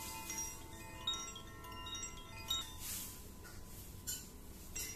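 Koshi-style bamboo-tube wind chime with tuned rods, swung by hand. The clapper strikes the rods and several clear notes of its chord ring on and overlap, until they are damped suddenly about two and a half seconds in. A few soft handling knocks follow.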